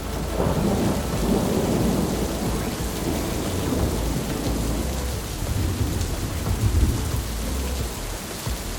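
Heavy rain falling steadily, with a low roll of thunder rumbling through the first couple of seconds.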